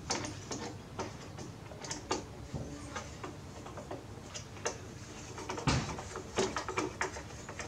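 Irregular small clicks and ticks of a screwdriver backing screws out of a plastic radio cassette recorder's case, with a louder knock about two thirds of the way in as the set is handled.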